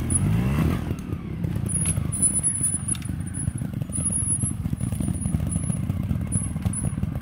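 Trials motorcycle engine revving up briefly about a second in, then running at low revs with an uneven rumble as the bikes pick their way over a log.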